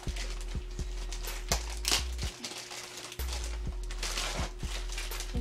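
Packaging being handled and unwrapped: crinkling, rustling wrap and a scatter of small taps and knocks from the box, over a steady low hum.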